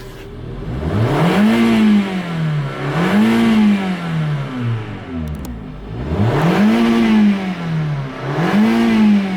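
2013 Hyundai Accent's 1.6-litre four-cylinder engine being revved from idle four times, in two pairs, each rev rising and then falling back.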